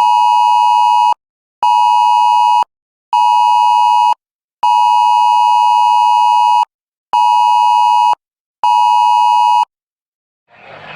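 Electronic alert beeps: one steady tone sounded in a long–short–short pattern twice over, two-second beeps each followed by two one-second beeps, with short gaps between them.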